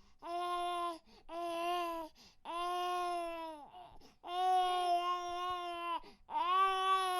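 A cartoon baby's crying sound effect: five drawn-out, even-pitched wails, each about a second long, with short breaks between them.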